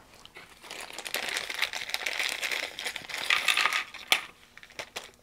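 A plastic parts bag crinkling as a small electronics kit's components are shaken out into a tray, with many small clicks of parts dropping in. A sharper click comes about four seconds in.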